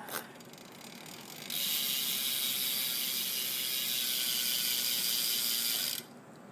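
Freewheel hub of a Specialized P.20 BMX bike buzzing as the wheel spins, its pawls clicking too fast to count. The buzz starts about a second and a half in and cuts off suddenly after about four and a half seconds, after a single knock at the start.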